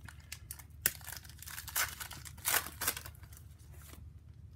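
Foil wrapper of a 2016 Panini Certified football card pack being torn open and crinkled by hand. There are several short rips, with a sharp one about a second in and the loudest about two and a half seconds in, dying away near the end.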